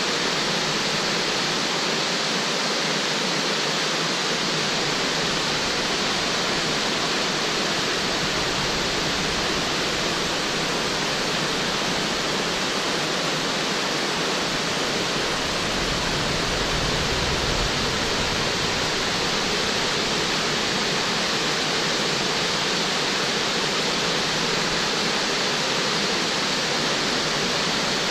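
St Columba Falls, a 90-metre waterfall, and the rocky creek below it: falling and cascading water rushing steadily and evenly.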